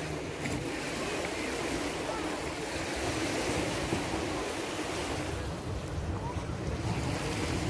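Adriatic Sea surf washing onto a sandy beach as a steady, even wash, with wind gusting on the microphone.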